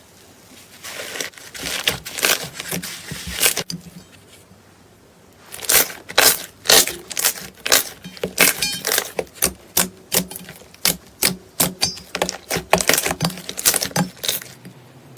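Slime being squeezed and pressed by hand, giving quick runs of sticky pops and clicks, with a pause of about a second and a half in the middle.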